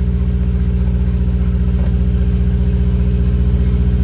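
Boat's diesel generator set running steadily in the engine room: a loud, even low drone with a fast regular pulse.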